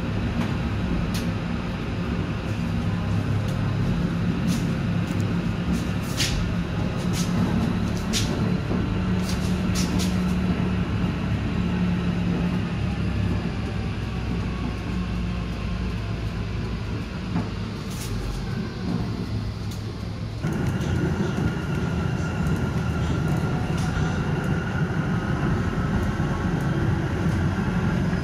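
Inside a moving tram: steady running rumble of wheels on the rails, with the electric traction motors' whine drifting in pitch and scattered sharp clicks and rattles in the first third. About two-thirds of the way through the sound changes abruptly, and a rising motor whine follows as the tram gathers speed.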